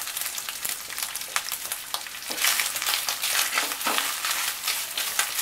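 Grated coconut with nigella seeds and slit green chillies sizzling in hot mustard oil in a non-stick wok, stirred around with a spatula. A steady hiss with many small crackles.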